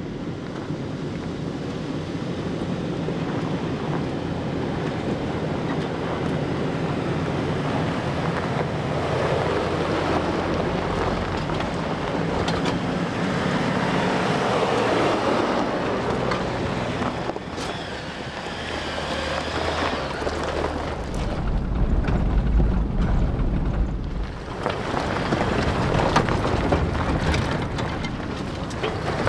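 Off-road trucks, a lifted Toyota 4Runner among them, driving past one after another on a dirt trail: engines running and tyres on the dirt, building as the lead truck passes close. A strong low rumble, wind buffeting the microphone, comes about two-thirds through.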